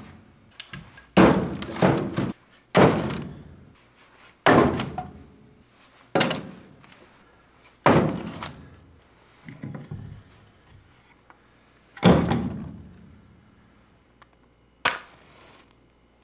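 Split firewood being laid piece by piece onto a metal fireplace grate: about eight hollow wooden thunks, one every second or two, each ringing briefly. Near the end, a short sharp strike of a match.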